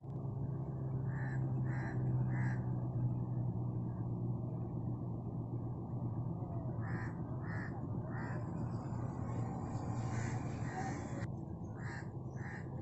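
A crow cawing in three short runs of two or three quick caws, about five seconds apart, over a steady low hum and a constant outdoor hiss.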